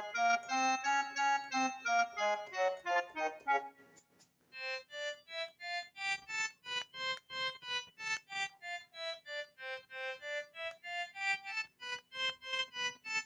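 A simple melody played first on a Yamaha PSS-F30 mini keyboard in a reedy, harmonium-like tone, then, after a short pause almost four seconds in, played again note by note on a harmonium app on a smartphone.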